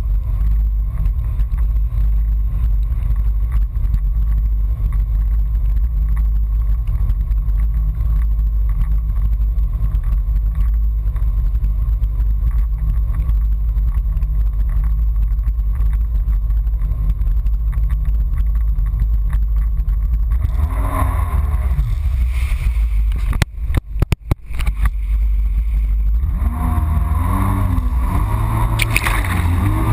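Yamaha FX HO Cruiser jet ski running at speed, heard as a heavy, steady low rumble of engine and water. About twenty seconds in, the engine note comes through more clearly and changes pitch as the throttle varies. There is a brief dropout near the middle of that stretch and a rising rev near the end.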